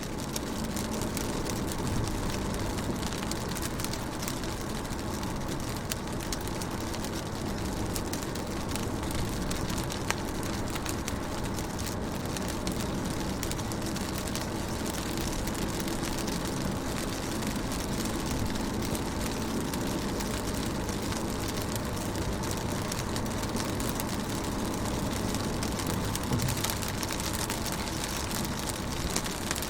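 Steady rain on a window pane: a constant hiss of rain with many separate drop hits ticking through it.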